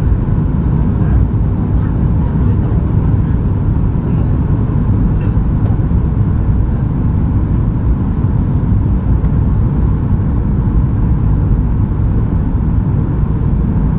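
Steady, loud cabin noise of a Boeing 737-800 in flight on approach: its CFM56-7B engines and rushing air make a deep even rumble, with a faint steady hum running through it.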